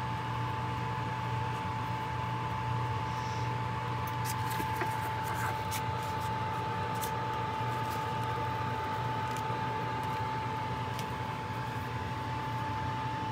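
Countertop convection oven preheating: its fan running as a steady whir with a constant whine over a low hum. A few faint crinkles of pastry and its paper sheet a few seconds in.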